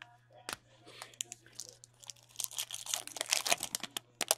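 A foil pack of trading cards being torn open by hand: crinkling and tearing that starts about a second and a half in and is loudest near the end.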